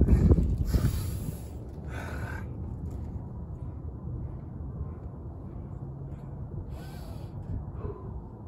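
A man breathing hard and gasping from the strain of push-ups: a few sharp, hissing breaths in the first couple of seconds and another about seven seconds in, over a low rumble.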